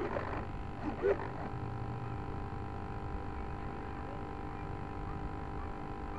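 Faint steady hiss with a thin, steady electronic hum, with brief faint voices near the start and about a second in.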